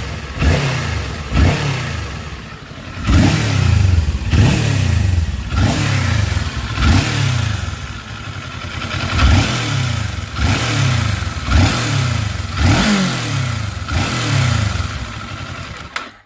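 Vehicle engine blipped repeatedly, about once a second, each rev starting with a sharp clack and dying away, with a rattling noise that the owner calls weird and finds worst here.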